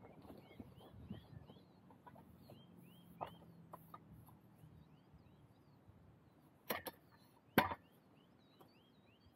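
A bird singing a run of short rising chirps, two or three a second, over quiet outdoor background. Near the end come two sharp knocks less than a second apart as a tent pole is handled.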